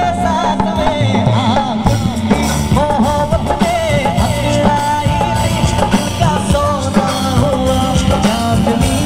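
Live band music amplified through stage loudspeakers: a singer's voice over keyboard, bass and drum kit.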